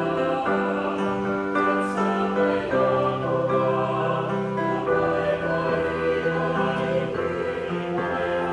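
A small mixed choir of women and men singing an Ilocano hymn in held chords, moving to a new chord every second or two.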